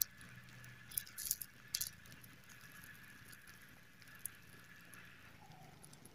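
Small open fire of dry sticks roasting raw cashew nuts in their shells, crackling with scattered sharp pops, a cluster of them between one and two seconds in.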